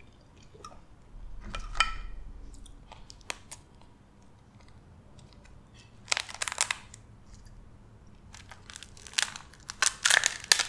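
Boiled blue crab shell being cracked and pulled apart by hand: bursts of sharp cracking and crunching, loudest around six seconds in and again near the end.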